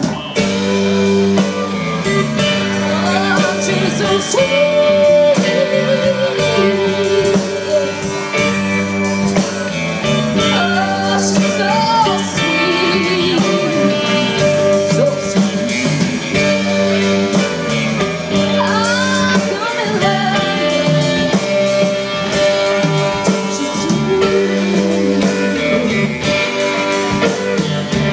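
A live band plays a rock song on electric guitars, bass and drums, with a woman singing over it.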